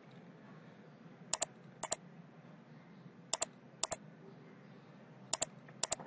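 Sharp clicks at a computer, each a quick double tick, coming in pairs about half a second apart, three pairs about two seconds apart, over faint room hiss.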